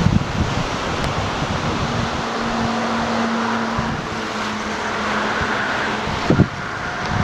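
Steady roar of fast-flowing floodwater surging over a road. A faint steady hum runs through the middle, and wind buffets the microphone briefly at the start and again near the end.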